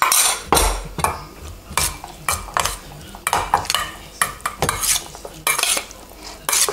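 Diced vegetables being stirred into an oil-and-vinegar dressing in a round-bottomed mixing bowl, with a utensil scraping and clinking against the bowl in short, irregular strokes.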